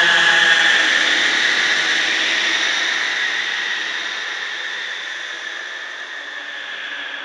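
A designed horror ambience: a rushing, static-like noise drone, with its hiss strongest in the upper middle, that fades slowly and steadily.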